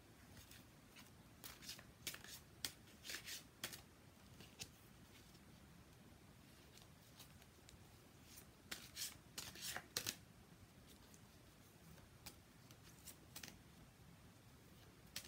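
A deck of Sirian Starseed tarot cards being shuffled by hand: faint, soft clusters of card rustles and flicks with pauses between them, the longest run of shuffling a little past the middle.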